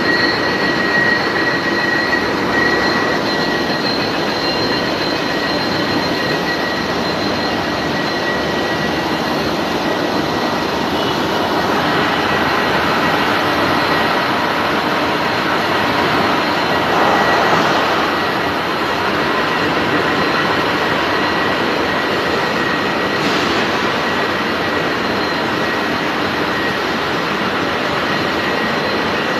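Grinder on a lathe grinding the inside of an 800 mm-diameter bore: a steady hiss of abrasive on metal with a thin high whine over it, swelling briefly a little past halfway.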